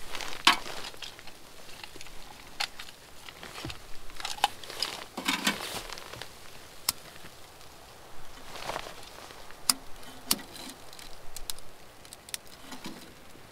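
Rustling of a winter jacket and gloves with scattered sharp clicks and light knocks, the handling sounds of lighting kindling in a small wood stove.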